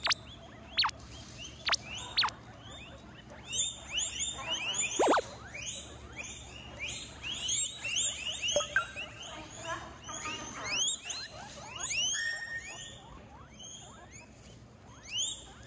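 A group of guinea pigs wheeking: many overlapping high squeals, each rising in pitch, coming thick and fast from about three seconds in.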